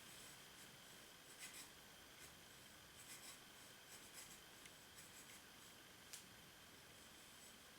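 Near silence with a few faint, short scratches and rubs scattered through it, like light handling or scraping on a surface.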